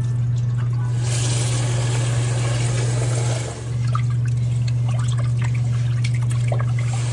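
Cloudy rice-rinse water poured from a rice cooker's inner pot into a stainless steel sink, then, after a short break, soaked rice rubbed and swished by hand in water in the pot: the rice being washed. A steady low hum runs underneath.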